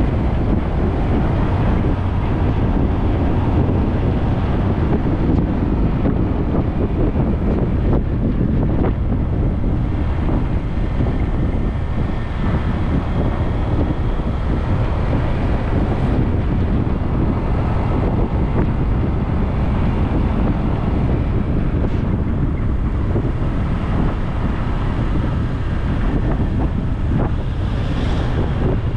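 Wind buffeting the microphone while riding a bike along a road: a steady, loud rush with a low rumble underneath.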